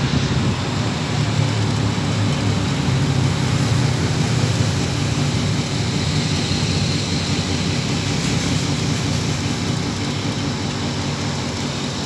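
Outdoor condensing unit of an LG S05LFG-2 half-horsepower R-22 split air conditioner running, a steady low hum from its compressor with the rush of its condenser fan.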